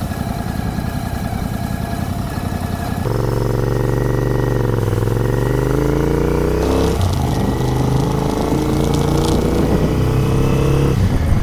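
Royal Enfield Continental GT 650's parallel-twin engine idling with a steady pulse, then pulling away about three seconds in. The note rises in pitch as it accelerates, dips around five and seven seconds in, and climbs again.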